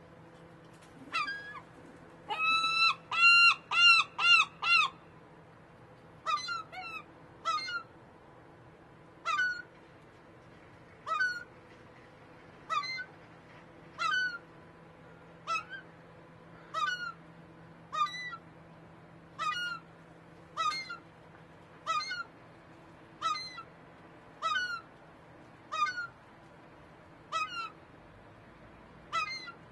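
A bird calling: first a quick run of about six loud calls, then single calls that drop in pitch, repeated evenly about every second and a half, over a faint steady hum.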